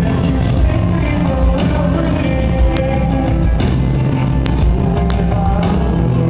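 Amplified rock band playing live, with singing over the band.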